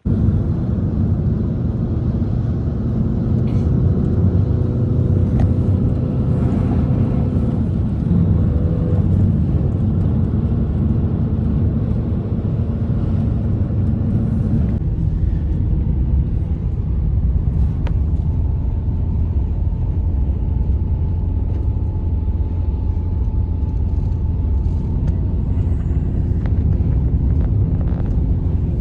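Loud, steady low rumble with a few faint steady tones above it; its character shifts about halfway through.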